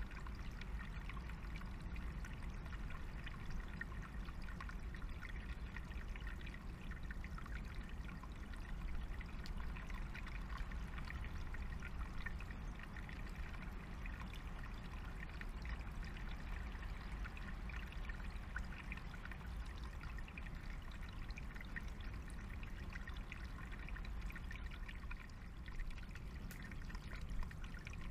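Small stream trickling steadily over stones, with a steady low rumble underneath.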